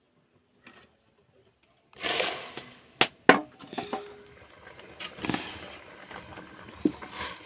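Near silence, then about two seconds in a sudden start of clattering and knocking of hard objects being handled, with two sharp knocks close together and smaller knocks and scrapes after.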